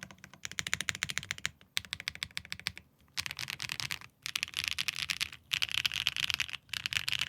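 Fast typing on a Neo Ergo mechanical keyboard with Xinhai switches, a carbon-fibre plate, plate foam and PBT keycaps: rapid keystrokes in runs of about a second, broken by short pauses.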